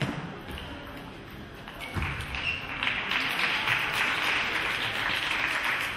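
Table tennis rally: the celluloid ball clicks off bats and table a few times in a large hall. From about two seconds in, a louder, dense clatter of hall noise builds up.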